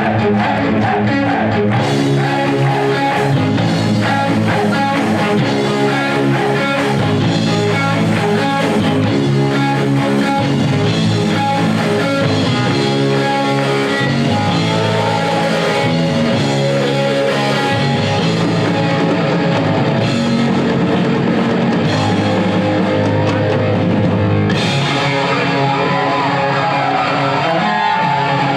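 Heavy metal band playing live: distorted electric guitar, bass and drum kit, loud and steady. The bright top end drops away near the end.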